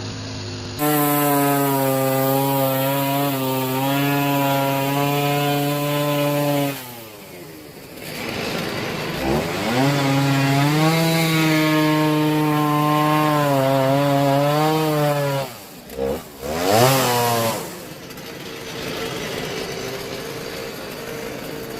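Two-stroke chainsaw cutting into a cypress log at full throttle, easing off about a third of the way in, revving up again for a second long cut, then dropping back with one short blip of the throttle near the end.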